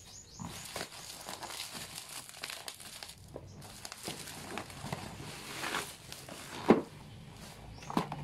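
Plastic bubble wrap crinkling and rustling as it is pulled and torn off a cardboard box, with many small crackles. A single sharp knock, the loudest sound, comes about two-thirds of the way through.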